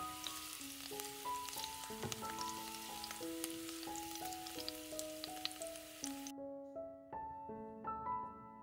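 Food frying with a crackling sizzle over gentle melodic background music; the sizzling cuts off abruptly about six seconds in, leaving only the music.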